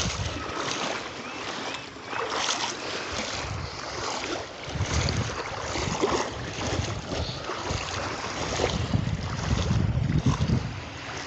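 Surf washing on a beach, with wind buffeting the microphone in low rumbling gusts.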